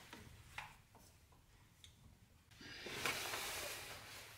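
Faint handling noise from hands fitting an oil catch can to its bracket with a hex key: a few light clicks, then a soft rustling for the last two seconds or so.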